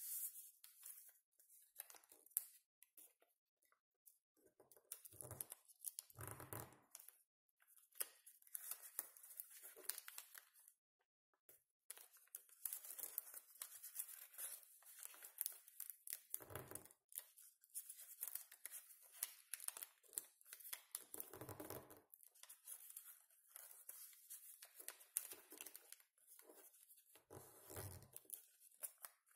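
Faint rustling and crinkling of origami paper being folded and creased by hand, in irregular bursts, with a few soft thumps scattered through.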